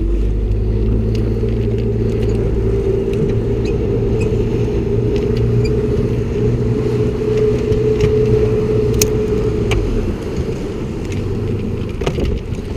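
Boat motor running steadily at trolling speed: a low hum with a held tone above it, which drops away and softens about ten seconds in.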